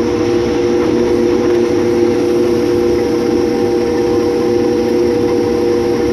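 Combine harvester running steadily under load while cutting wheat: a constant drone with two steady humming tones. The machine is labouring in tough, dusty straw, and its owner calls the sound grunting and groaning.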